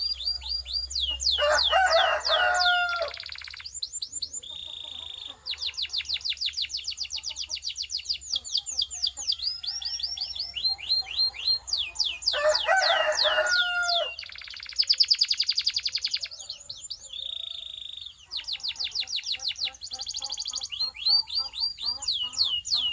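Domestic canary singing a long, continuous song: fast trills of rapidly repeated high sweeping notes, a few held steady whistles, and twice a lower, scratchier chattering passage.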